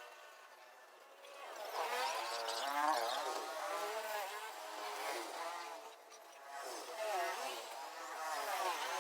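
Small engines buzzing, their pitch rising and falling in several swells as they rev or pass.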